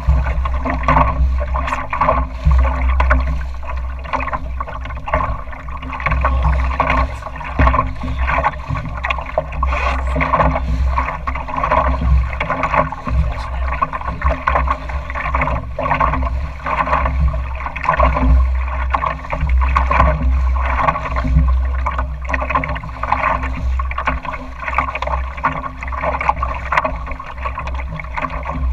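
Choppy water sloshing and splashing against the hull of a Northeaster Dory under sail, with a steady low wind rumble on the microphone.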